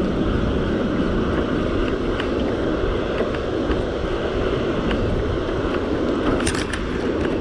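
Steady rushing roar of water pouring through the open gates of a dam spillway, mixed with wind on the microphone. A few sharp clicks near the end.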